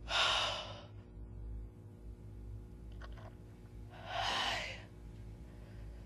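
A woman gasping, two sharp, breathy intakes of breath about four seconds apart, with a faint shorter breath between them, over a low steady hum.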